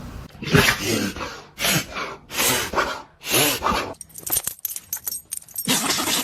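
A dog sneezing four times in a row, about once a second, each a short sharp burst of breath. A quick clatter of small clicks follows for the last couple of seconds.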